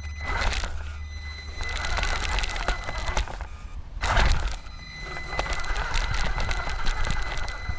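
WLtoys A959 1/18-scale electric RC car driving over rough ground, heard from a camera mounted on the car: a steady high motor whine over dense rattling and crunching from the tyres and chassis. The sound drops away about three seconds in, then surges loudly about a second later.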